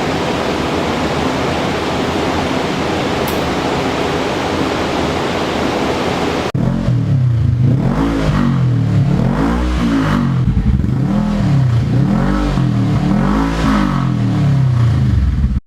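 Polaris RZR S 900's twin-cylinder engine through a new HMF full dual exhaust: a steady running rumble, then, after a sudden cut about six and a half seconds in, a string of throttle blips, the revs rising and falling about once a second.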